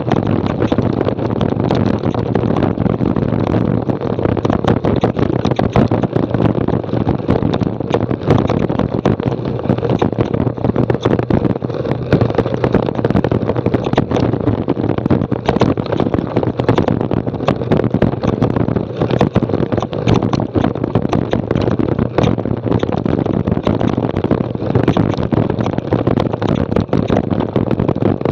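Mountain bike descending rocky singletrack: tyres crunching over loose stones, with the bike rattling in a constant stream of small knocks, and wind on the microphone.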